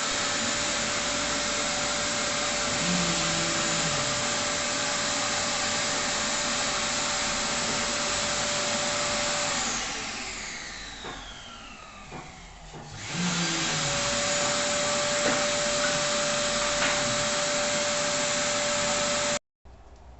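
An electric motor running steadily at high speed. About ten seconds in it is switched off and spins down with a falling whine, then is switched on again about three seconds later and runs at full speed until it cuts off abruptly near the end.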